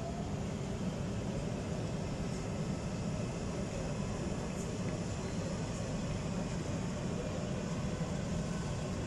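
Steady low rumble and hiss of railway-station ambience, unchanging throughout, with no distinct event standing out.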